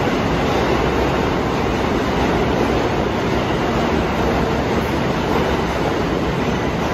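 Subway train running past on the far track of an underground station: a steady, loud noise of steel wheels on rail with no let-up.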